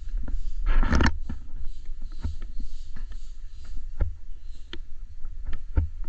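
Handling noise from a handheld camera moving through a boat's cabin: a low, uneven rumble with scattered knocks, like footsteps on a wooden floor, and a louder rustling bump about a second in.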